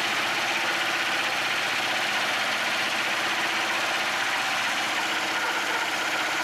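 Homemade wooden band saw mill running steadily, its blade cutting through a hard maple log about 15 inches wide.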